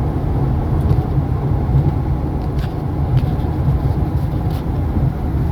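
Steady low rumble of a vehicle travelling along the highway, tyre and engine noise with no change in pace.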